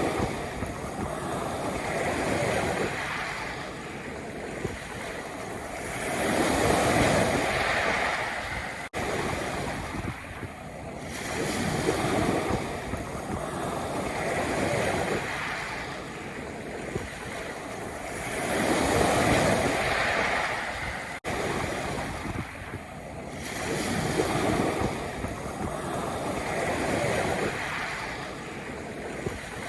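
Sea waves washing onto a pebble beach, the surf swelling and ebbing about every four seconds.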